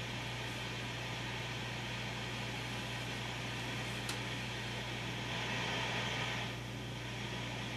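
Steady low electrical hum under a hiss of room noise, with a faint click about four seconds in and a brief rise in the hiss a little later.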